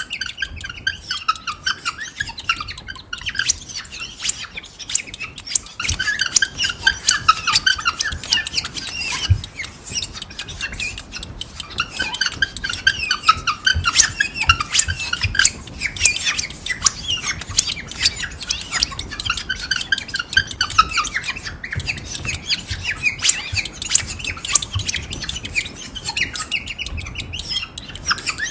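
Imitation birdsong made with household objects such as kitchen gear, combs, springs and mirrors: squeaky chirps and twittering phrases over constant rapid clicking and rattling, the chirping swelling and fading every few seconds.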